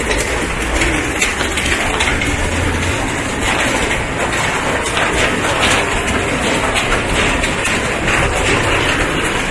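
Heavy rain falling on a paved street and roofs: a steady hiss thick with small drop hits, with a low rumble underneath for the first three seconds.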